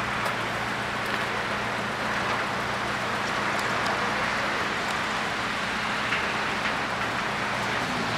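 Steady outdoor hiss with a low, even hum underneath; the hum fades out shortly before the end.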